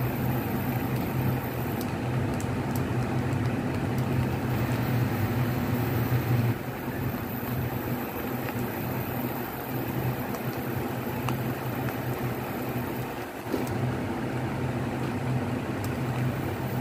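Steady low hum and whir of a kitchen fan, dropping slightly in level about six and a half seconds in.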